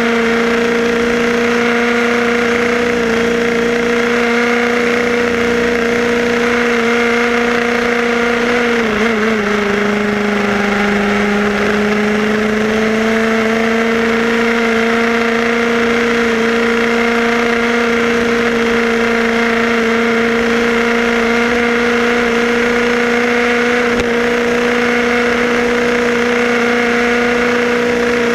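Tamiya model car's small electric motor and gears whining steadily. The pitch dips about nine seconds in and climbs back over the next few seconds as the car slows and picks up speed again, over a hiss of tyre noise.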